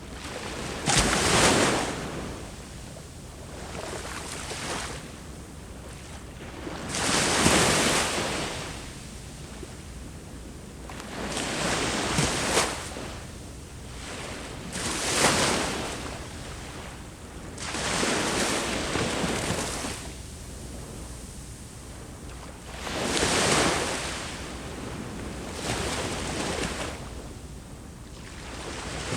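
Sea waves breaking on the shore, one surge of rushing surf every three to four seconds over a steady wash.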